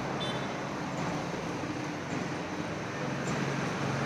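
Steady road-traffic noise with a vehicle engine running.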